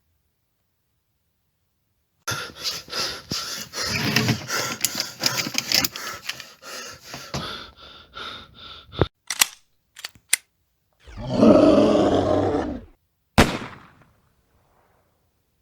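Horror-style sound effects: a rapid, loud barrage of banging lasting several seconds, a few sharp single knocks, then a loud rasping cry and one last bang.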